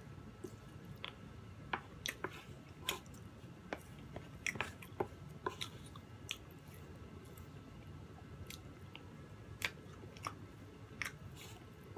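Two people chewing soft chiffon cake with cream, close to the microphone, with small sharp wet clicks scattered irregularly through the chewing.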